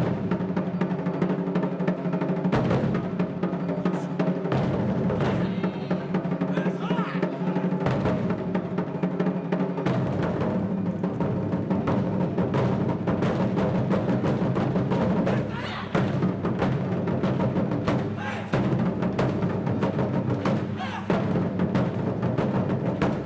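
Japanese taiko ensemble drumming: many fast, dense drum strikes over steady held pitches, with the deep bass layer dropping in and out every few seconds.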